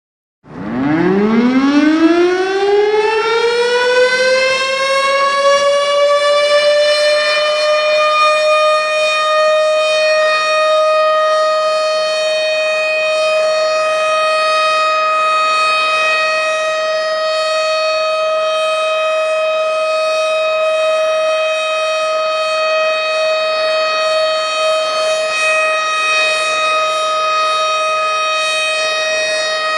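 Tornado warning siren starting up: its tone rises steeply in pitch over the first several seconds, then holds one loud, steady wail.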